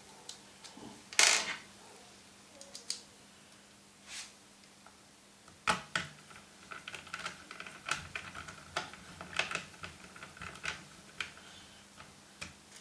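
Irregular small clicks and taps of screws, a screwdriver and a hard-drive caddy being handled and fitted into the plastic drive bay of an HP 630 laptop, with one louder, longer noise about a second in.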